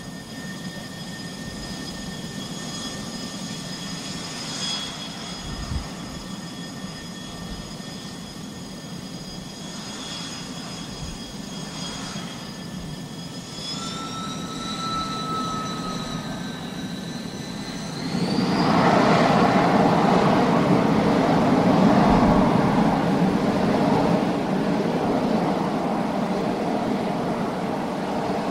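F-14 Tomcat fighter jet's engines whining steadily, the whine rising in pitch about halfway through. About two-thirds in it gives way to a loud roar as the jet goes to takeoff thrust.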